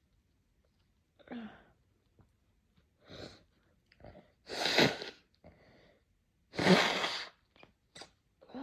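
A person sneezing: quieter breaths build up over the first few seconds, then two loud sneezes come about two seconds apart, with short sniffs and breaths after them.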